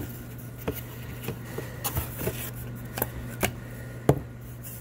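Items being handled and lifted out of a cardboard shipping box: scattered light knocks and rustles of cardboard, paper and plastic packaging, the sharpest knock about four seconds in. A steady low hum runs underneath.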